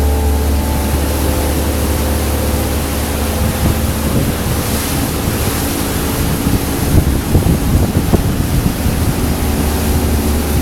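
Motorboat engine running under way, with water rushing past the hull and wind buffeting the microphone; the buffeting gets heavier and more uneven about halfway through.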